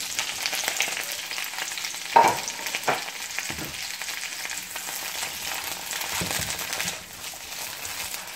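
Green beans and peas sizzling in hot oil in a pan as they are tipped in and stirred, with a few sharp knocks about two to four seconds in.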